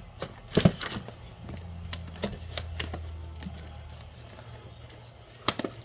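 Plastic wrap and cardboard of a trading-card box being torn open: a series of sharp crinkles and snaps, loudest about half a second in and again near the end.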